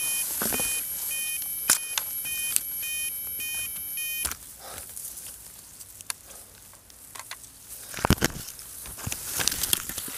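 A crashed quadcopter's lost-model alarm beeping rapidly and steadily, in a high-pitched repeated pattern that stops about four seconds in. It is followed by rustling of crop stalks and a few knocks as the quad is picked up by hand.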